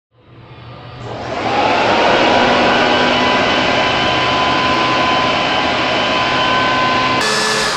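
Electric leaf blower switching on: its motor spins up over about two seconds to a loud, steady rush of air with a high motor whine. The sound changes abruptly near the end.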